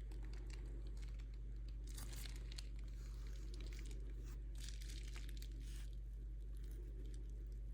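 Crinkling, rustling handling noise in several short bursts, over a steady low electrical hum.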